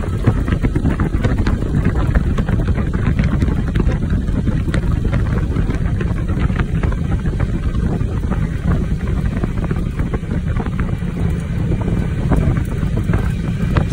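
Wind buffeting the microphone at the open window of a moving vehicle, a dense steady rumble mixed with road and engine noise.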